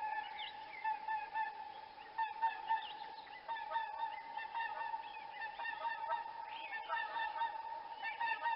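Swans honking: many short, overlapping honks repeating throughout, as from several birds calling together.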